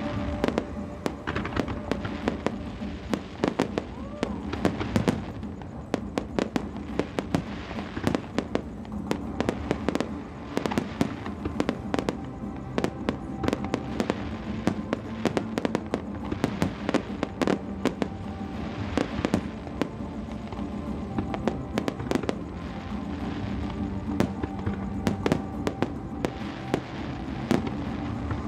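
Aerial fireworks going off in a dense, irregular run of sharp bangs and crackles, with music playing steadily underneath.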